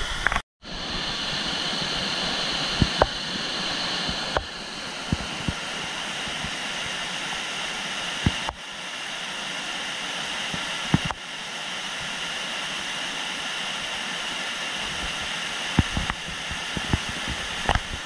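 Steady rushing of a waterfall's falling water, dropping out briefly about half a second in and shifting in level a few times. A few faint knocks can be heard over it.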